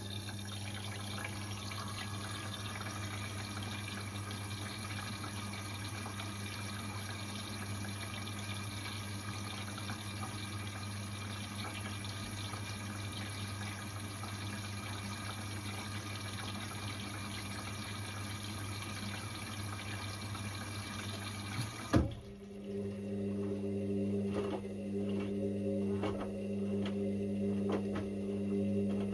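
Indesit IWC6165 washing machine filling: water rushing in through the inlet valve with a low electrical hum. About 22 seconds in, the inflow shuts off with a sharp click, and a steady motor hum with light clicks takes over.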